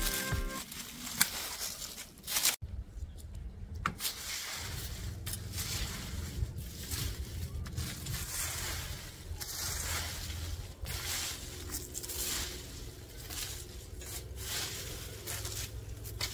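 Dry leaves and dead plant stems rustling and crunching as they are cut and raked up from a mulched garden bed, in repeated scratchy strokes.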